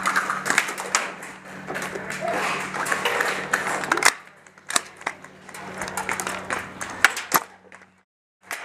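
Irregular sharp cracks and clacks of gas blowback airsoft rifles firing, over a steady low hum. The sound drops out completely for a moment near the end.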